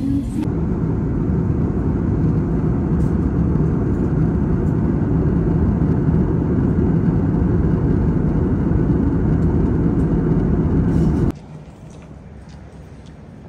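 Steady, low drone of an airliner cabin in cruise, the jet engines and rushing air heard from a window seat. About eleven seconds in it cuts off abruptly to much quieter terminal room noise.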